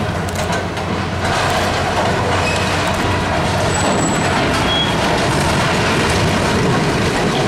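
80-ton steel overhead bridge crane collapsing, a continuous heavy rumble of clanking and grinding metal that swells about a second in, with a couple of brief high-pitched squeals near the middle.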